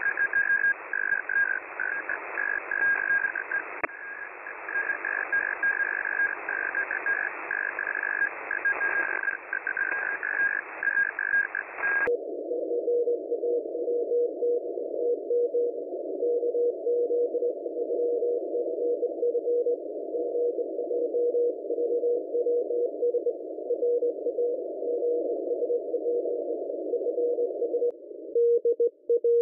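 Morse code (CW) signals received on a shortwave software-defined radio: first a distorted, high-pitched keyed tone in a wide band of hiss. About twelve seconds in it cuts to a different station, a lower keyed tone in narrower hiss, and near the end to another Morse signal.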